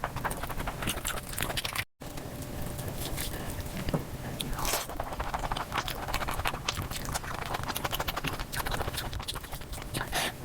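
Close-miked ASMR eating sounds, biting, chewing and crunching, sped up four times into a rapid stream of clicks and smacks. The sound cuts out briefly about two seconds in.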